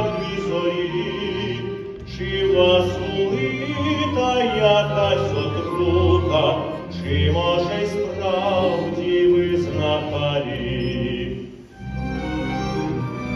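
Operatic singing with orchestral accompaniment from a stage performance; the voice stops about three-quarters of the way through, the music dips briefly, and the strings carry on.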